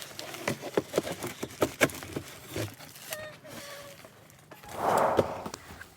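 Packaging of a boxed coffee maker being handled: a run of small clicks and knocks, a brief squeak about three seconds in, and a louder rustle about five seconds in.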